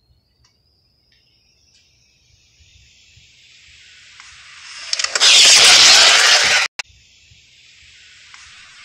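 High-speed electric RC car making a pass: a faint high motor whine slowly climbing in pitch, growing into a loud rush of motor and tyre noise about five seconds in. The sound cuts out abruptly for a moment at its peak, then a quieter whine rises again near the end.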